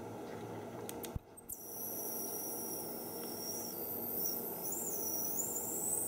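A click about a second in, then a thin, high-pitched electronic whine from the 5 V ultrasonic mist-maker kit's piezo disc and driver board, its pitch wavering and jumping as the disc sits in the water.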